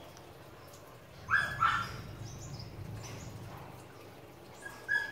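A dog barking: two quick barks a little over a second in, and another near the end.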